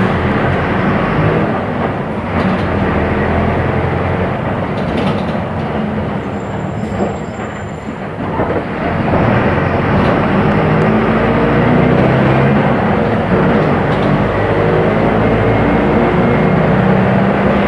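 Mercedes-Benz OF-1418 bus's six-cylinder turbodiesel engine running under way. It eases off for a few seconds, then grows louder again about nine seconds in as the bus accelerates.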